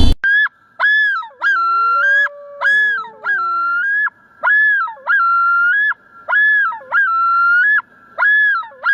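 Bird calling in a repeated clear whistle, note after note about once a second, each note held steady and then dropping quickly in pitch at its end. Fainter lower whistles slide downward early on.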